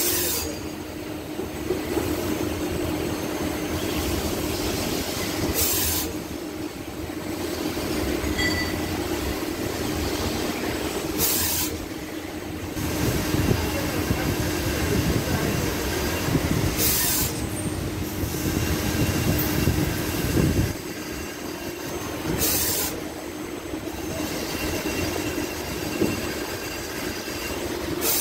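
CNC lathe chamfering the edges of a helical groove on a large metal part: steady machine running with a low hum that stops about twenty seconds in, and a short hiss about every six seconds.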